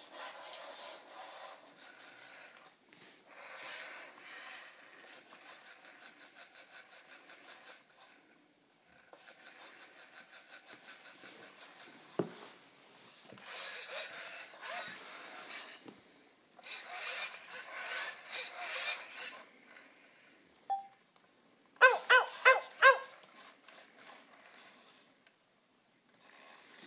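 Genibo SD robot dog's servo motors whirring and grinding in stretches of a few seconds as its legs and head move. About 22 seconds in, a quick run of four or five loud pitched electronic sounds.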